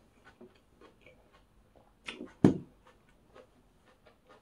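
Light scattered clicks with two knocks about two seconds in, the second a dull thump and the loudest sound.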